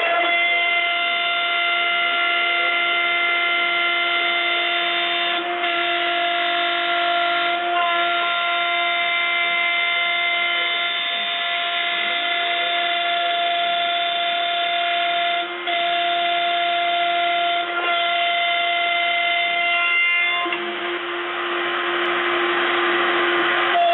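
Desktop CNC milling machine's spindle turning a wood cutter as it mills plywood: a steady high-pitched whine with a few brief dips.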